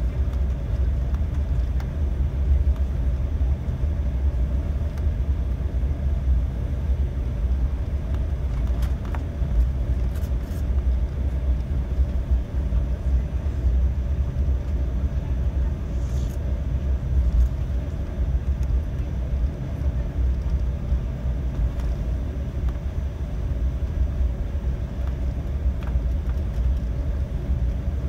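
Embraer 195 jet airliner heard from inside the passenger cabin: a steady low rumble of engine and airframe noise with a faint constant hum, unchanging throughout.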